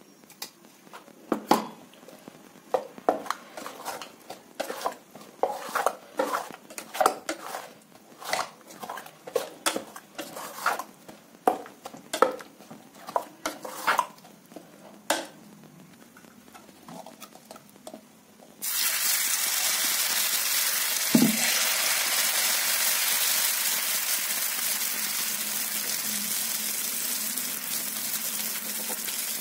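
A steel spoon stirs thick batter in a steel bowl, clinking and scraping against the sides in irregular strokes for about fifteen seconds. After a short lull, batter on a hot oiled iron tawa starts sizzling suddenly, frying steadily, with one dull knock a little later.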